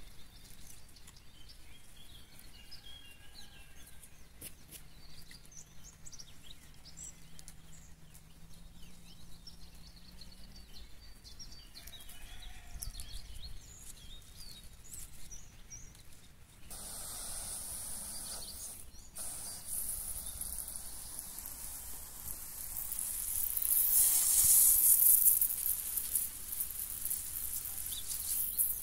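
Small birds chirping faintly, then just past halfway a garden hose spray nozzle opens with a sudden steady hiss of water spraying over a raised bed. The spray cuts out briefly once and is loudest a few seconds before the end.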